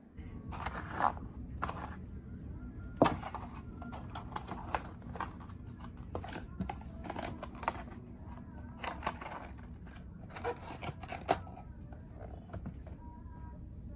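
Hands handling a small charger and its packaging: irregular clicks, taps and scrapes, a few of them sharper.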